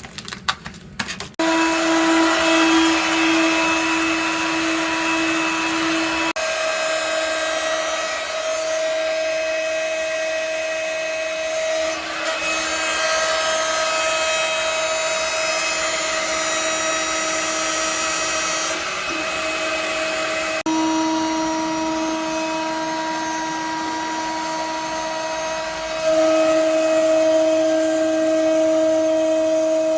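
CNC router-mill spindle milling aluminium: a steady, high-pitched cutting whine with a strong pitched tone over a noisy chewing sound, changing in pitch and loudness several times as the cut goes on. A few irregular knocks come in the first second or so before the cut settles.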